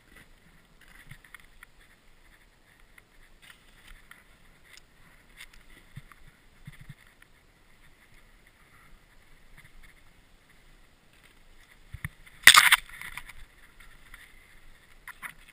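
Snowboard sliding through powder snow: a soft, steady hiss with scattered light scrapes, and one brief loud knock about twelve seconds in.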